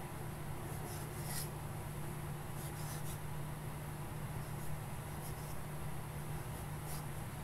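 Fountain pen nib scratching across paper in short writing strokes, several faint scratches spread through, over a steady low hum.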